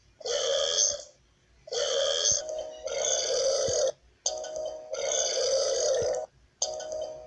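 Burping: five long burps in a row, each lasting about one to two seconds, with short gaps between them.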